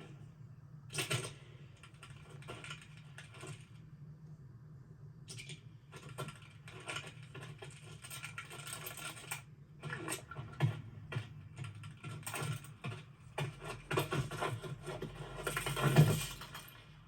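Animated-film sound effects: bursts of fast, dry clicking and scratching over a low steady hum, growing denser and loudest in a final burst near the end.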